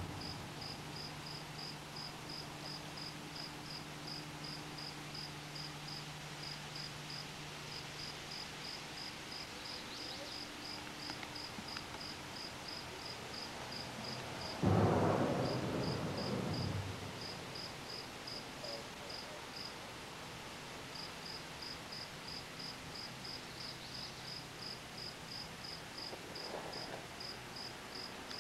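An insect chirping in a steady, high-pitched series of about three short chirps a second, with a few brief pauses. Halfway through, a sudden loud rumbling rush of noise lasts about two seconds.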